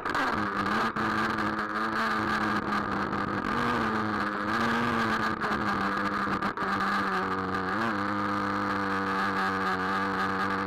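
Traxxas Nitro Rustler's small two-stroke nitro engine running close to the on-board camera. Its pitch rises and falls with the throttle, with a few knocks from the bumpy ride. About seven seconds in it settles to a steady idle as the truck stops.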